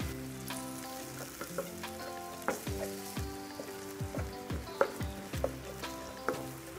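Wooden spatula stirring sautéed onions, garlic and green chillies with soy and chilli sauce in a non-stick wok, the mixture sizzling, with irregular scrapes and taps of the spatula against the pan.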